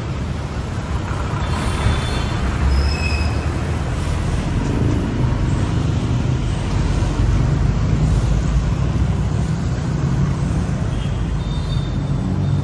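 Heavy road traffic: a steady rumble of engines and tyres from passing buses and cars, with a few short high squeals about two to three seconds in and again near the end.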